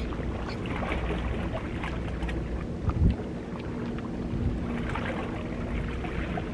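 Wind buffeting the microphone over the sea lapping against rocks, with a low thump about three seconds in and a faint steady hum in the second half.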